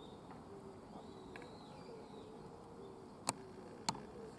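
Quiet outdoor background with faint high bird calls, then two sharp clicks about half a second apart near the end.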